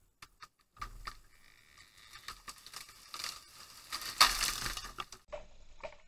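Rustling and crunching in dry brush and debris, with scattered sharp clicks, as someone moves about and handles things on the ground. The noise is loudest about four seconds in and cuts off abruptly near the end.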